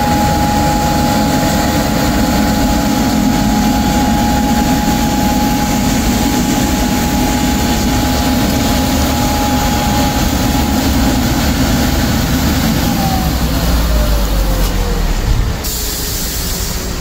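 Vacuum sweeper truck running its engine and suction system: a loud steady whine over a low drone. About thirteen seconds in the whine slides down in pitch, and near the end the sound drops, with a brief hiss.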